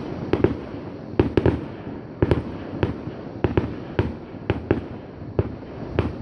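Aerial firework shells bursting in a rapid, irregular series of sharp bangs, some coming in quick pairs.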